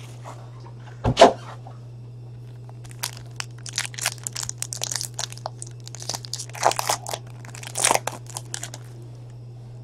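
Foil wrapper of a trading-card pack being torn open and crinkled by hand: a quick run of crackles and rips, loudest twice near the end. A single knock comes about a second in.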